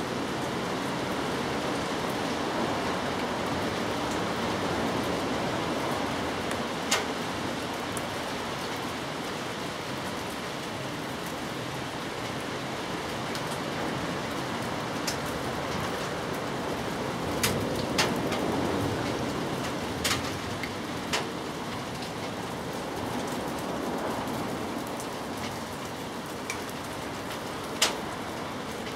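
Steady outdoor background hiss with a handful of short, sharp clicks scattered through it.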